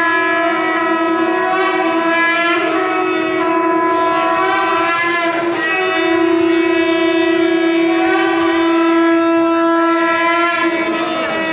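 Conch shell (shankh) blown in one long held note, steady in pitch with only a slight waver.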